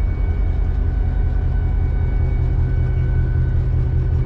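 Diesel locomotive engine running, heard inside the cab: a steady deep rumble with a steady high whine over it.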